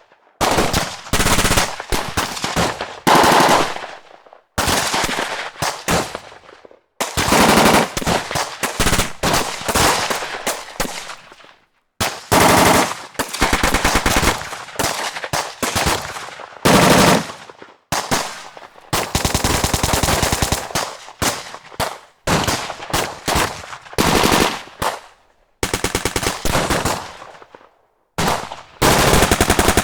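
Automatic machine-gun fire in a string of bursts, each a few seconds long, with brief pauses between them.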